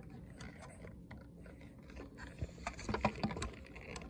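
Faint handling sounds: light scrapes and a scatter of short clicks and taps, bunched in the second half, as a tape measure is worked against a plywood board to take a measurement.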